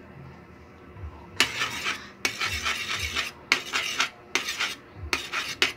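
A metal utensil scraping against a frying pan as raw eggs are beaten into frying corned beef, in about five quick bursts of strokes starting about a second and a half in.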